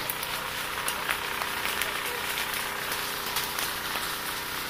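Dry grass and brush burning: irregular crackling and sharp pops over a steady hiss.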